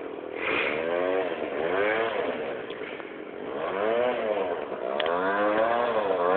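Small scooter engine revving up and down repeatedly as the scooter is ridden and drifted on a dirt track, its pitch rising and falling about four times.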